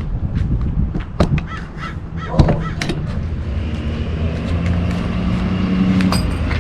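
Sharp metallic clinks and knocks of hand-tool work on a washing machine's back panel, with crows cawing.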